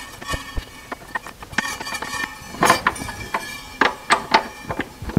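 Irregular clicks, clunks and light metallic rattles from a Meinl cajon's snare mechanism, the strip of snare wires on its bar knocking against the wooden box as it is moved by hand and the side lever is worked, loudest about halfway through. The snare is not engaging properly against the soundboard.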